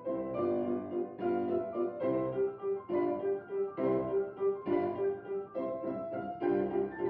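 Background piano music, a string of single notes and chords.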